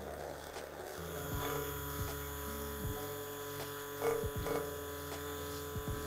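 Electric immersion blender running steadily in a glass bowl of chocolate ganache, with a few brief knocks. It is blending cold cream into split ganache to re-emulsify it.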